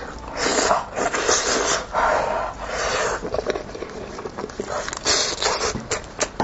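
Close-miked eating of meat from a cooked sheep's head: chewing, sucking and slurping in irregular bursts.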